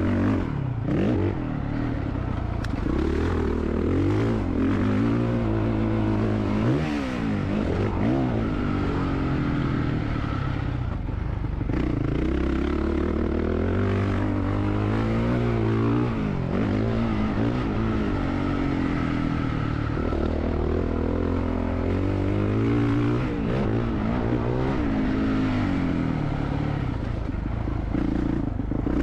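A 2022 Honda CRF450R motocross bike's 450 cc single-cylinder four-stroke engine being ridden hard on a dirt track, its revs climbing and falling again and again as the throttle is opened and rolled off.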